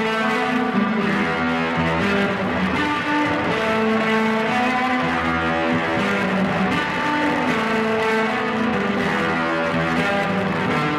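Instrumental band music led by guitar, playing notes held about a second each at a steady loudness, with no singing.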